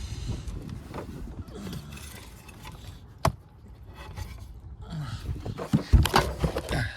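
Handling noise of hands rummaging among car wiring: rustling and light clatter, a sharp click about three seconds in, and a cluster of louder knocks near the end.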